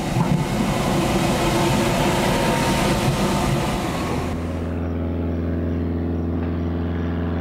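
Air rushing over an engineless glider during an aerobatic loop, a loud even rush. About four seconds in it cuts off sharply to a steady low engine drone.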